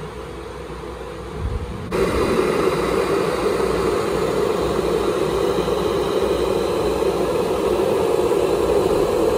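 Redmond electric kettle heating water: a steady rushing hiss and rumble that jumps abruptly louder about two seconds in and then holds steady.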